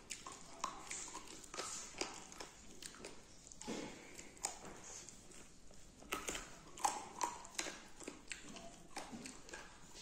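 A person eating beef, chewing and smacking their lips with irregular wet clicks and smacks, several a second.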